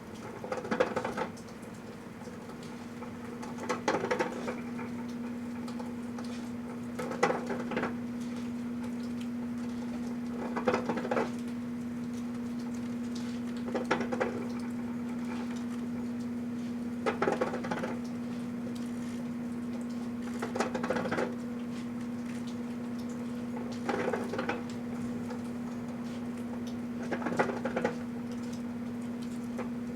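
Microwave oven running with a steady hum while the singing plush toy inside burns, crackling and popping in a short burst about every three seconds.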